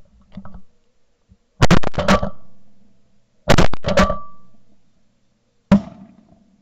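Shotgun volleys from several guns: a quick string of blasts about a second and a half in, another string about two seconds later, and a single shot near the end, each trailing off in a long echo.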